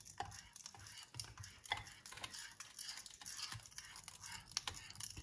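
A fork stirring melted chocolate with butter, sugar and egg yolk in a bowl: faint scraping with irregular light clicks of the fork against the bowl.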